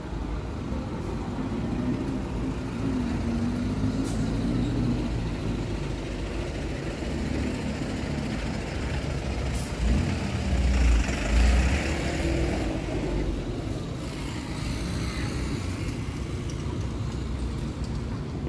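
City street traffic: heavy road vehicles with a steady engine rumble. About ten seconds in, a heavy vehicle passes close by with a loud low rumble and a hiss of air.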